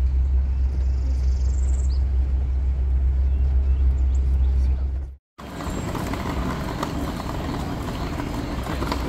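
A steady low rumble, cut off abruptly about five seconds in by a moment of dead silence. Then the open-air ambience of a theme-park queue entrance: guests walking and murmuring in the background.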